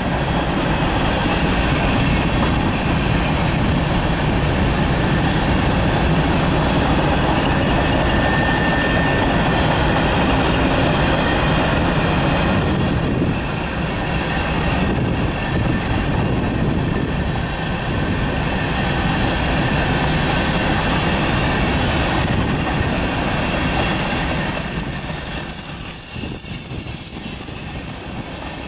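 Norfolk Southern covered hopper cars of a grain train rolling steadily past: a continuous rumble and clatter of steel wheels on rail, with a thin, high, steady squeal joining in about three-quarters of the way through.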